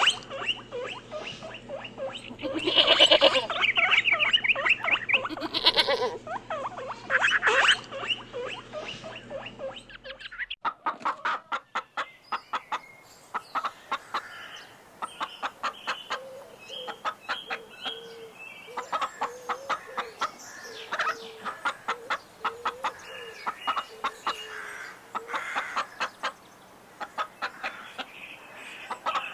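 High-pitched squealing calls from a small animal for about the first ten seconds, over a steady low hum. Then, after an abrupt change, domestic chickens clucking amid a rapid run of short ticks.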